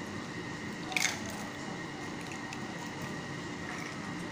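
An egg being broken open by hand over a bowl of chopped filling: one short crack with a wet squish about a second in, over a faint steady background hum.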